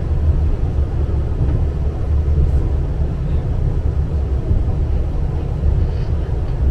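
Steady low rumble inside a tram's passenger cabin as the tram runs along the track.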